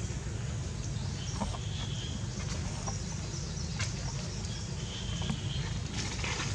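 Faint high-pitched animal calls, one about a second in and another about five seconds in, over a steady low rumble, with a few light clicks.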